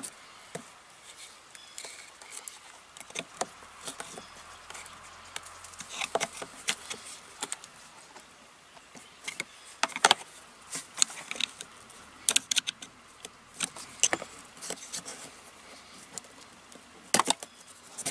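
Scattered sharp clicks and plastic snaps from a screwdriver prying up the little clamps that hold a VW VR6's PCV breather hose on the intake, with the hose being worked loose. The clicks come irregularly in small clusters, loudest about ten seconds in.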